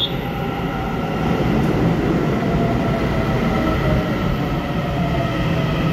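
Taiwan Railway EMU900 electric multiple unit running into an underground station platform: a steady rumble of wheels on rail with a faint electric motor whine.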